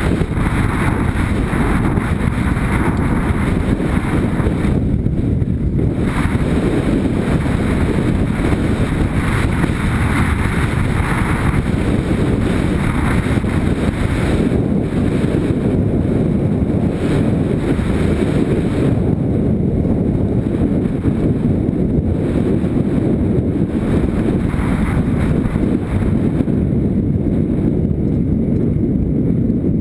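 Motorcycle riding along a dirt track, heard as steady heavy wind buffeting on the camera's microphone over the running engine.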